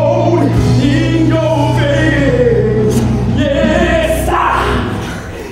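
Live musical-theatre song: singers performing a gospel-style number over a band with steady bass notes, ending on a held note that stops near the end.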